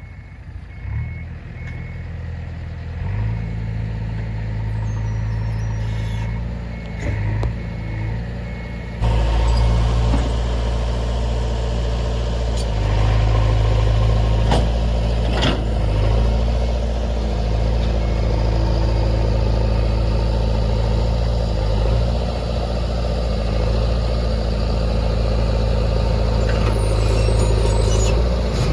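Heavy diesel engine of a working backhoe or truck running steadily, with a reversing alarm beeping over it during the first few seconds. The engine gets markedly louder about nine seconds in and stays loud, with a few sharp metal clanks around the middle.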